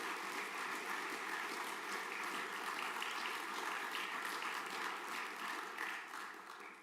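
Audience of students and staff applauding, a steady round of clapping that fades out near the end.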